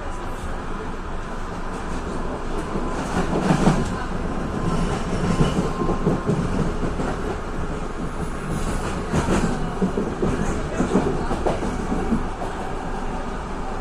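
Passenger train running, heard from inside the carriage: a steady rumble of wheels on the track with irregular clattering knocks as the wheels pass over rail joints.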